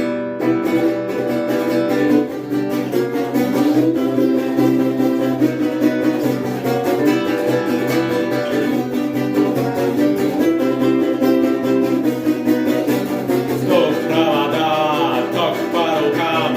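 Guitar strummed in a fast, steady rhythm of full chords, the instrumental intro of a song. A singing voice comes in near the end.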